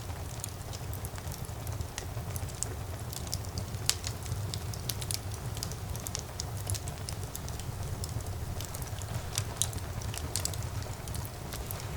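Wood fire burning in a fireplace: many small, irregular crackles and pops over a steady low rumble of the flames, with one sharper pop about four seconds in.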